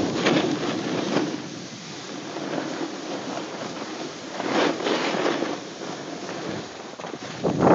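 Snowboard sliding and scraping over packed snow, with wind on the microphone. The scraping swells about a second in and again around four and a half seconds in.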